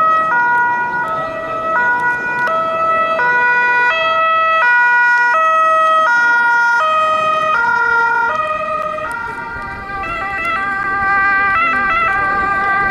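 Italian police car's two-tone siren, alternating a high and a low note about every 0.7 seconds, dies away about nine seconds in. Then a second emergency siren with a different, quicker pattern, from an approaching ambulance.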